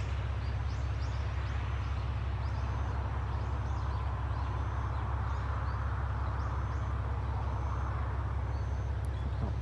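Diesel railcar engine idling steadily with a deep, even hum while it stands at the platform, with faint short high chirps over it.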